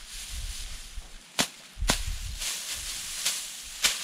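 Dry rice sheaves and straw rustling as they are gathered and lifted by hand, with a few sharp cracks, the loudest near the end.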